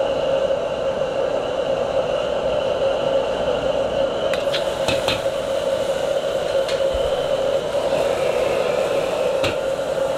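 Commercial gas wok burner running with a steady rushing roar under the wok. A few sharp clicks cut in about four to five seconds in and again near the end.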